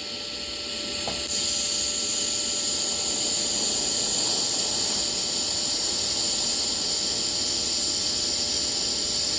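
DC lift-arc TIG welding arc on steel: a steady hiss that starts about a second in as the arc is struck and then holds even, over a faint steady hum.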